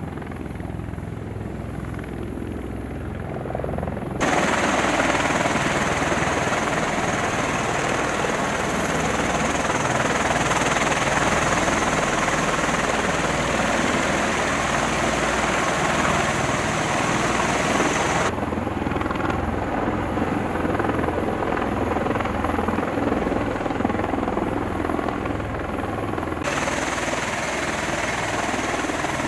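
Rotor and turbine noise from MV-22B Osprey tiltrotors and a CH-53E Super Stallion helicopter: a steady, loud roar over a low rotor throb. It gets suddenly louder about four seconds in and changes character abruptly twice more, near the eighteen-second mark and again near the end.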